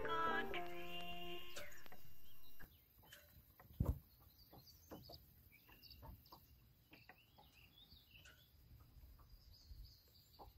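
Music ends about two and a half seconds in, giving way to faint outdoor ambience with scattered short bird chirps and a single low thump about four seconds in.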